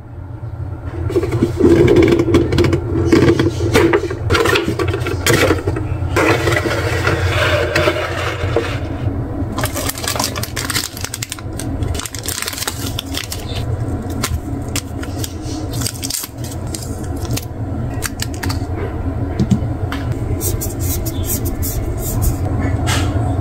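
Packaging being handled: cardboard box and plastic rustling, scraping and clicking, then a clear plastic bag crinkling as a vinyl figure is unwrapped and handled. A steady low hum runs underneath.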